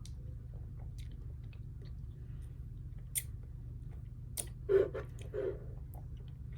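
Close-miked eating: scattered mouth clicks and chewing, with a louder burst of chewing sounds about two thirds of the way through. A steady low hum runs underneath.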